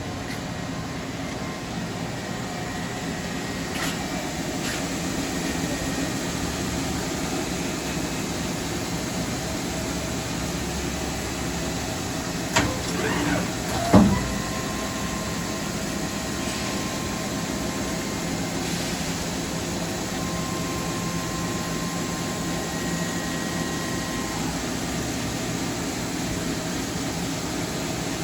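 Mori Seiki DuraTurn 2550MC CNC lathe running with a steady mechanical hum. A short clatter of knocks comes about halfway through, then a faint steady high tone holds for about ten seconds.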